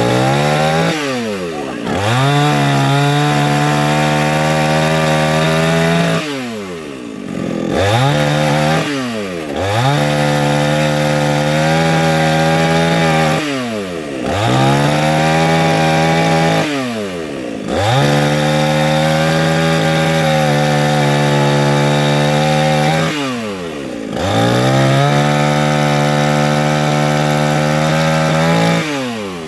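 Alpina A510 two-stroke petrol chainsaw cutting logs. The engine revs up, holds at high speed through each cut for a few seconds, then drops back toward idle, about six times over.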